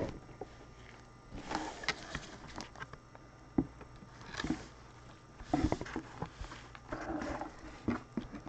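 Trading cards and their packaging being handled: intermittent rustling and scattered light clicks.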